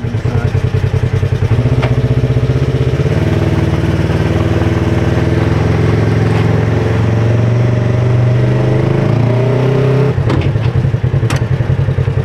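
Polaris RZR side-by-side's engine running steadily, with a couple of sharp knocks near the end.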